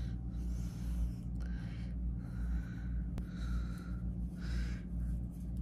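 A person breathing audibly close to the microphone, about five breaths, over a steady low hum, with one faint click about three seconds in.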